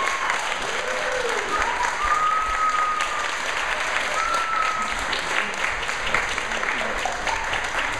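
Audience applauding steadily, a dense patter of clapping, with a few whoops and voices rising over it in the first half.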